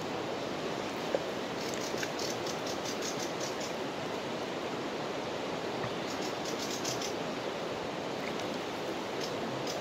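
Fast-flowing river water rushing steadily. Twice a short run of rapid, faint high ticks sounds over it.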